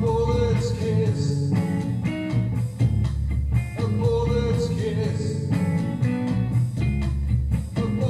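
Blues-rock band recording of bass, guitar and drum machine, with a steady programmed beat. A held guitar note comes back about every four seconds.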